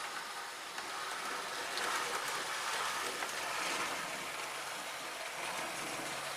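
OO gauge model 0-6-0 locomotive with three coaches running back down a layout incline: a steady whirr and rattle of motor and wheels on the track, a little louder from about two seconds in.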